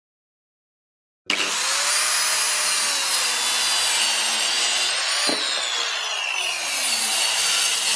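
Mafell KSS300 portable circular saw running and crosscutting a wooden board along its guide track, a loud whine of blade and motor that bends in pitch as it cuts. The sound starts abruptly about a second in.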